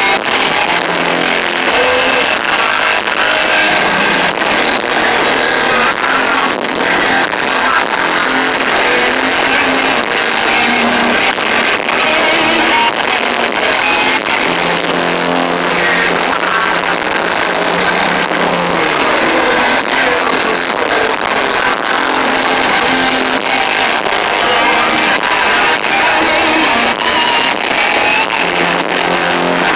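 Heavy rock band playing live, with guitars, loud and continuous. The recording is poor, with very little bass.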